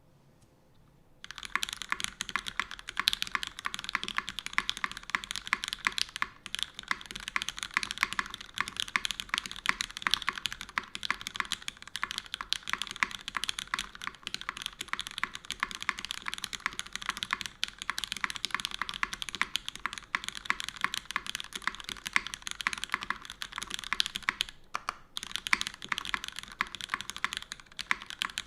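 Custom mechanical keyboard being typed on in a fast, continuous stream of keystrokes: lubed Cherry MX Black linear switches in an aluminium plate, under GMK doubleshot ABS keycaps. Typing starts about a second in and pauses briefly twice.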